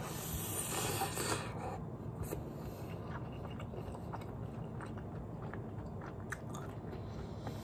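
Close-miked chewing of a mouthful of rice with bulgogi beef and vegetables. It is louder for the first two seconds as the spoonful goes in, then carries on more softly with small wet mouth clicks.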